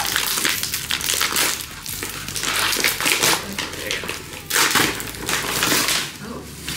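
Clear plastic packaging crinkling and rustling in irregular surges as it is torn open and pulled off a footrest cushion.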